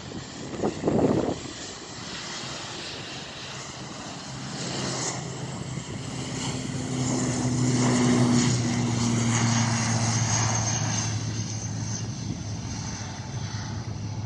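Twin-turboprop airliner's engines at takeoff power on the takeoff roll: a steady propeller drone that swells to its loudest about eight seconds in as the aircraft goes past, then slowly fades as it lifts off. A brief loud rumble about a second in.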